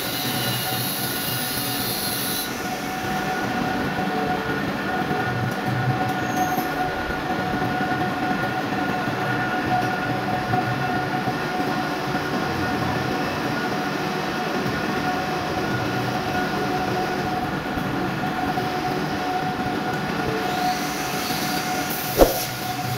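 Manual metal lathe running steadily with a constant whine, with a single sharp knock near the end.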